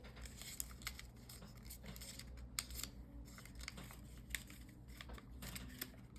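Origami paper being handled and folded by hand: faint rustling and crinkling with scattered short paper clicks as creases are pressed.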